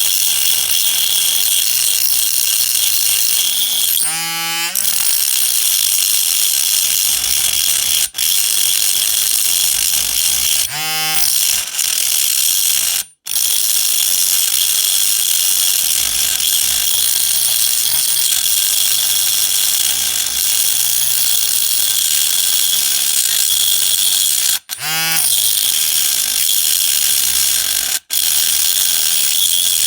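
High-speed rotary tool cutting through a die-cast zinc toy car body, a steady high grinding whine. Three times its pitch briefly sweeps as the tool slows and picks up again, and the sound cuts out abruptly a couple of times.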